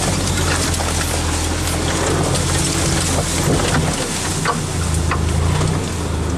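Off-road 4x4's engine running steadily at low revs as it crawls through dense brush, with leaves and branches brushing and ticking against the body.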